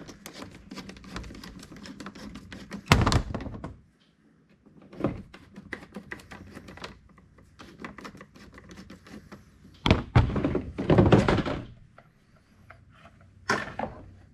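Hollow clunks and knocks of the removed plastic factory airbox being handled and set down, with lighter clicks between. The loudest knock comes about three seconds in, and a rapid run of clunks comes about ten seconds in.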